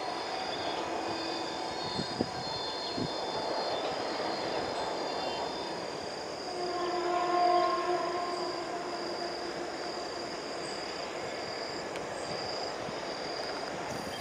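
Goods train of cement wagons running slowly, with a steady rolling rumble, while a locomotive horn sounds: faintly near the start, then a louder blast about six and a half seconds in, lasting about two seconds. A steady high insect drone runs underneath.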